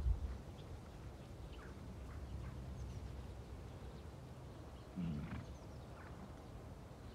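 Wind noise on the microphone with scattered faint bird chirps. About five seconds in comes one short, low animal call.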